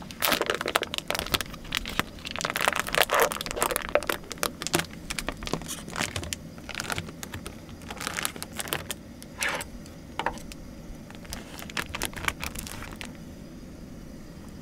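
Plastic wrapper of a kielbasa sausage being torn open and crinkled as the sausage is unwrapped by hand. The crackling is dense for the first few seconds, then thins to scattered crinkles that stop about a second before the end.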